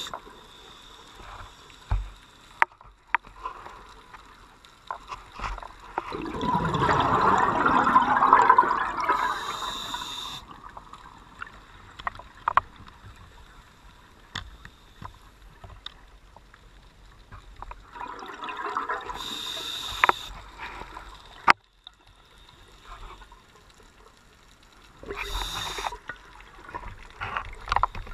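Scuba diver breathing through a regulator underwater: three breaths, each a short hiss of inhalation and a long bubbling exhalation, with scattered sharp clicks between them.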